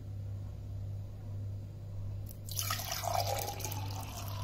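Cold water poured into an empty stainless steel tumbler. The splashing against the metal starts about halfway through, over a steady low hum.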